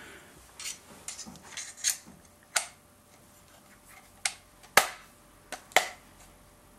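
Scattered sharp metal clicks and taps as the trigger-group pins are fitted into the receiver of a Remington Model 740 Woodsmaster rifle, the loudest click about three-quarters of the way through.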